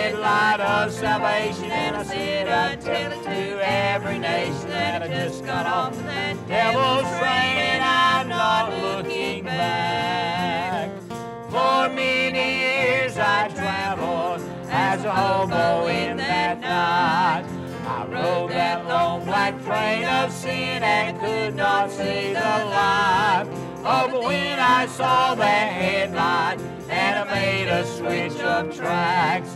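Country gospel song: a man singing with a wide vibrato over instrumental backing.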